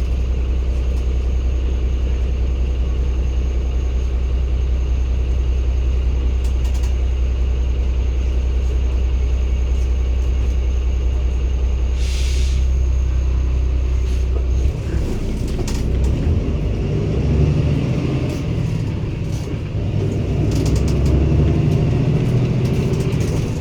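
Cummins ISB six-cylinder diesel of a 2016 Daewoo NEW BS090 city bus idling steadily, with a short hiss of released air about twelve seconds in. About fifteen seconds in, the engine takes load: its note becomes louder and rougher, rising and falling as the bus moves off.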